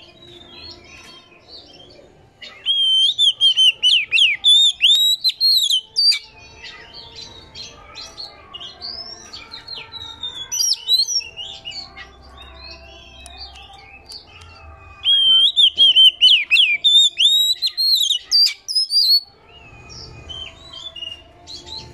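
Oriental magpie-robin singing: a soft, varied song broken twice by loud runs of rapid, repeated whistled notes, each lasting about three to four seconds, the first starting about two seconds in and the second about fifteen seconds in.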